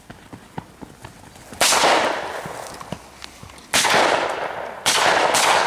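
Four blank revolver shots: one about one and a half seconds in, another two seconds later, then two in quick succession near the end, each trailing off over about a second.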